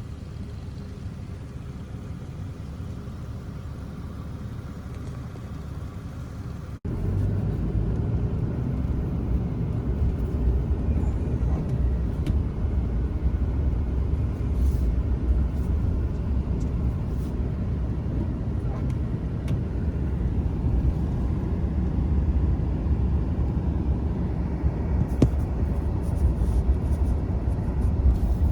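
Steady low rumble of a vehicle driving, road and engine noise with no distinct tones; it jumps louder at a cut about seven seconds in.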